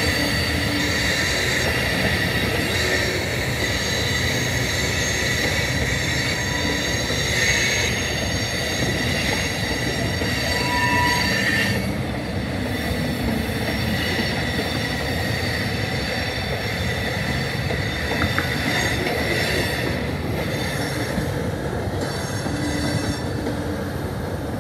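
Freight train rolling past on steel wheels, its autorack cars nearest, with wheel squeal in several steady high tones that weakens about halfway through.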